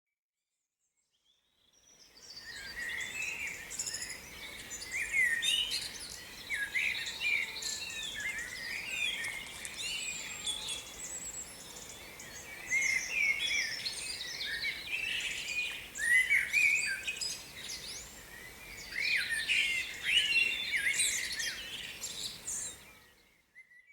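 Birdsong: several birds singing at once, a busy tangle of quick, high chirps and warbles that starts about two seconds in and fades out near the end.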